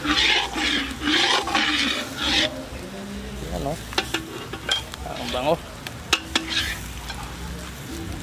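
Spoon stirring and scraping in a cooking pot of seasonings, in quick rhythmic strokes for about two and a half seconds, then quieter with a few sharp clicks and knocks.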